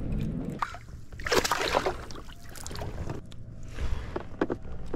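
Water splashing and knocking around a fishing kayak, with a loud burst of splashing about a second and a half in and scattered short knocks after it.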